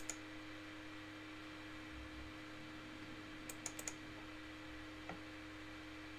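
Sharp clicks of computer input: one at the start, a quick run of four about three and a half seconds in, and one more about five seconds in, over a steady electrical hum.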